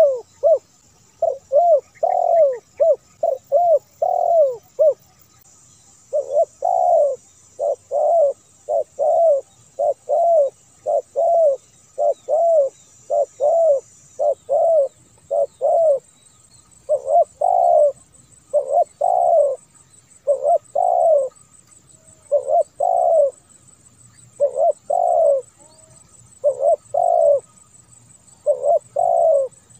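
Spotted dove (tekukur) cooing: repeated phrases of low coos, one after another with short pauses. This is a clean, edited call recording used to lure and set off doves into calling.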